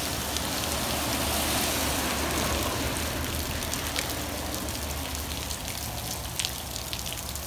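Light rain falling steadily, with a few sharp drops ticking close by, over a low steady hum.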